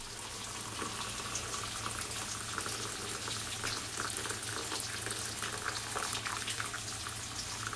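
Boiling water pouring in a thin stream from a stainless steel kettle into a plastic measuring jug: a steady splashing that fills the jug.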